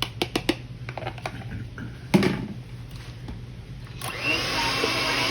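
A few light clicks and a knock on a mixing bowl, then an electric hand mixer starts about four seconds in and runs steadily, beating a thick brownie batter.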